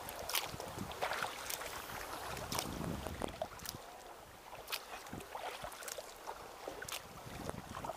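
Kayak paddle blades dipping into and pulling through calm water, with irregular splashes and drips off the blades about once a second over a soft wash of water.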